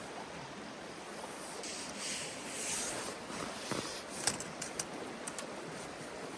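River water flowing steadily, an even rushing hiss. A few sharp clicks or taps come about four to five seconds in.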